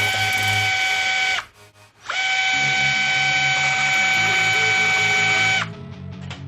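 A small high-speed power tool whining at a steady speed. It winds down about a second and a half in, spins back up half a second later, and winds down again near the end. Music with a bass beat plays underneath.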